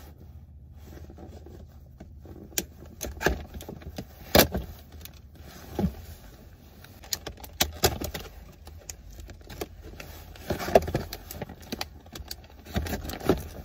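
Handling noises in a car: scattered sharp clicks, knocks and small jingles as objects are handled, with a jacket rustling close to the microphone, over a low steady hum. A louder knock comes about four seconds in and another near the end.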